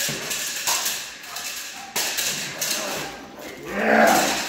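Doberman bite-work session: scuffling and short knocks as the dog grips and tugs the bite sleeve, then a loud, drawn-out call about four seconds in.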